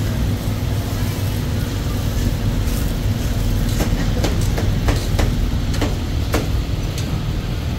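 Steady low rumble of street traffic. About halfway through comes a run of sharp knocks, roughly three a second, lasting some three seconds.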